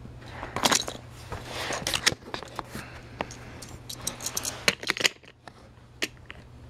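Handling noise from a plastic toy train set: a rapid run of clicks, taps and scrapes that stops about five seconds in, then one more click near the end, over a steady low hum.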